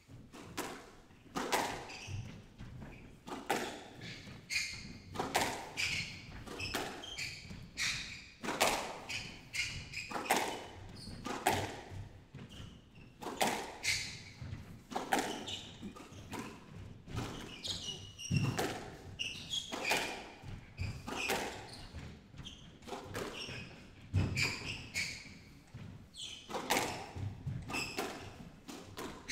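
A fast squash rally: a rubber ball struck hard by rackets and smacking off the court walls and floor about once or twice a second in a long unbroken exchange. Court shoes squeak on the wooden floor between the shots.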